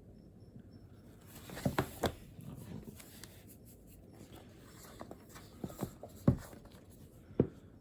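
Pen writing on paper: scattered scratchy strokes and a few sharp taps in two short clusters, with a last click near the end.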